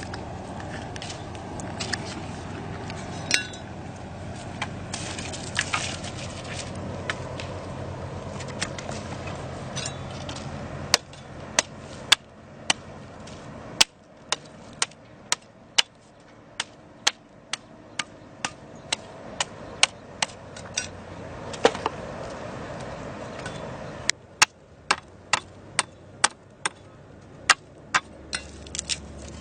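A series of sharp knocks and taps, scattered at first over a steady background noise, then coming about one to two a second after the background drops about eleven seconds in.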